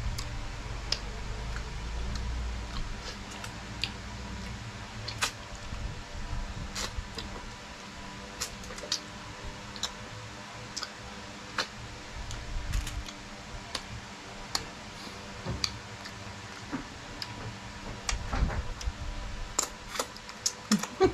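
Close-miked eating sounds: chewing with scattered sharp mouth smacks and clicks, over a low rumble that eases after the first few seconds; the smacks come thicker near the end.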